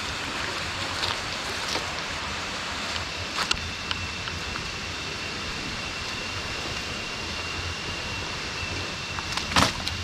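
Steady rush of a nearby jungle river, with a few sharp snaps and crunches of dry sticks and leaf litter as firewood is gathered, the loudest crack just before the end. A thin, steady high tone joins about three and a half seconds in.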